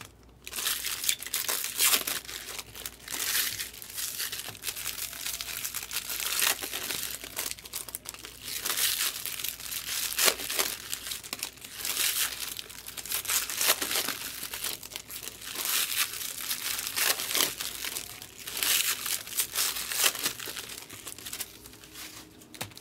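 Wrappers of 2024 Bowman baseball-card packs crinkling and tearing as packs are ripped open one after another, in irregular bursts every second or two.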